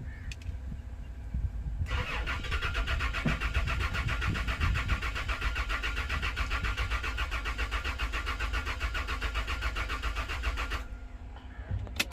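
Starter motor cranking a petrol V6 Toyota Land Cruiser engine for about nine seconds with an even pulsing rhythm, then cutting off without the engine catching: a crank-but-no-start.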